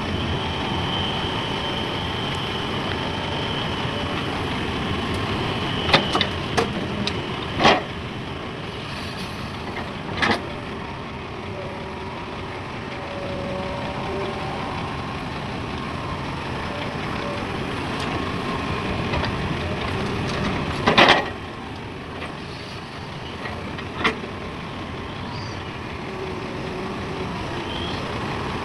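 Heavy machinery running steadily, an excavator working beside a dump truck, with a few sharp clanks and knocks, loudest about a third of the way in and again about three quarters through.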